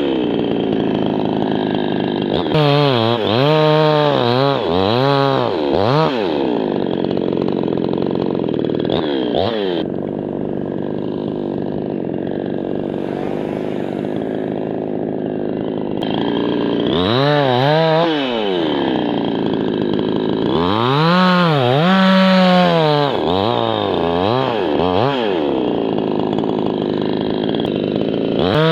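Two-stroke chainsaw cutting birch wood, its engine pitch repeatedly dipping and rising as the chain goes into and out of the cut, with a steadier, slightly quieter stretch in the middle.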